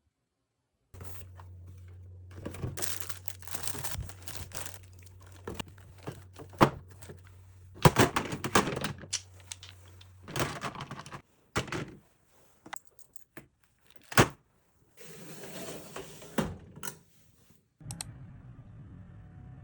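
Household things being handled and sorted: rustling and crinkling, with several sharp knocks as objects are put down. A low steady hum runs underneath for the first half.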